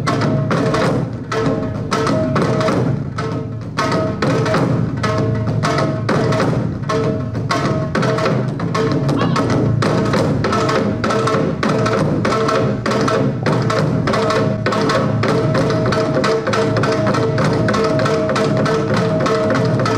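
Korean traditional percussion ensemble playing: a large barrel drum (buk) struck hard with two sticks, joined by janggu hourglass drum and other drums, in a fast, steady stream of beats. A steady held tone sounds underneath the drumming.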